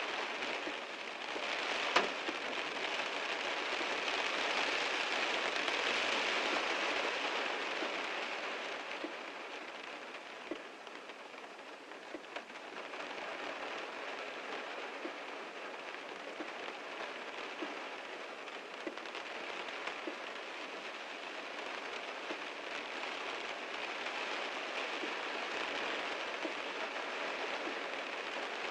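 Heavy rain drumming on a car's roof and windows, a dense patter of drops that swells, eases for a few seconds near the middle and builds again. One sharp tick about two seconds in.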